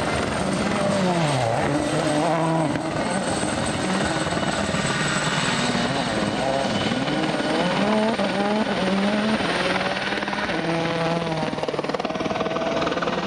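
Rally car engine revving hard, its pitch climbing and dropping again and again as it shifts through the gears.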